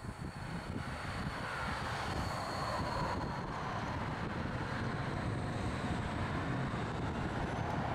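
Stadler Tramlink tram passing close below, its running noise rising over the first two seconds and then holding steady, with road traffic alongside.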